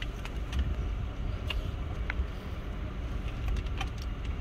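Low, steady rumble inside a parked Jeep with its engine idling. A few light clicks and taps come from a plastic drink cup and straw being handled.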